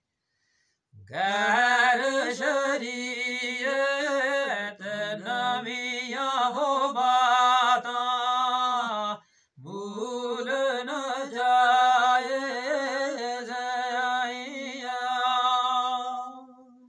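A man's solo voice chanting Gojri verse unaccompanied, in long held notes with a wavering melody. It comes in two long phrases with a brief pause for breath about halfway through.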